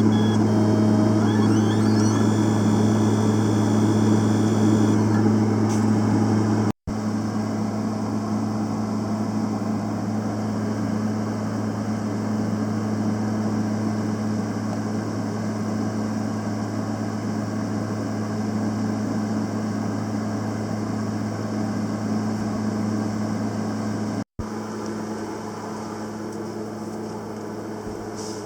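Panasonic YD-350GB2 semi-automatic welding machine running, a steady low electrical hum with fan-like noise over it. The sound cuts out for an instant twice.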